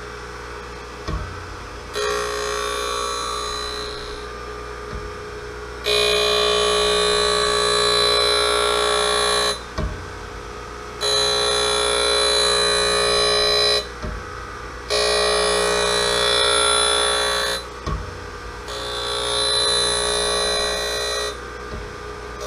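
Harig 6-12 surface grinder's wheel grinding A2 tool steel parallels dry, in five passes: each a loud, ringing grind of three to four seconds as the table carries the work under the wheel. Between passes the spindle's steady hum carries on, with a short knock now and then as the table reverses.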